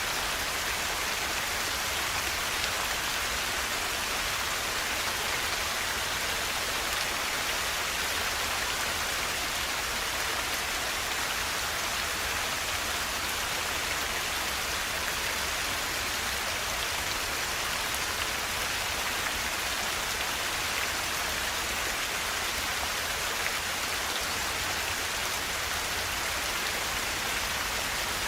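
Forest river flowing: a steady, unbroken rush of water with no change in level.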